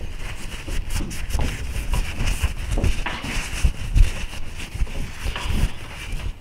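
Cloth shop rag rubbing and scrubbing over a steel railroad spike, wiping off excess oil: irregular rustling strokes with low thumps from handling.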